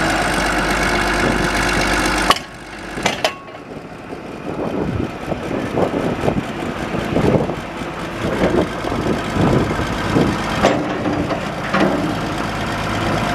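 John Deere 710D backhoe loader's diesel engine running steadily. About two seconds in, the sound cuts off abruptly and turns quieter and uneven, with scattered knocks, then settles back into a steady run near the end.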